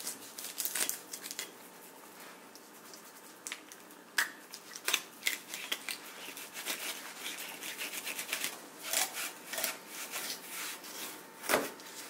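Fillet knife cutting into a walleye behind the pectoral fin and down into the fish: a run of short, irregular scraping and crunching strokes, with a quieter pause about two seconds in.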